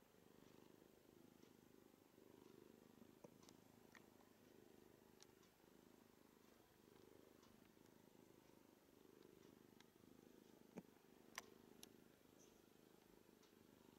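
Long-haired tabby cat purring faintly and steadily, the purr swelling and fading slowly. A few soft clicks come about three-quarters of the way through.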